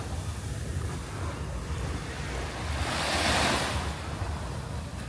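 Small waves breaking and washing up a sandy beach, one wave swelling into a hissing surge about three seconds in, with wind rumbling on the microphone.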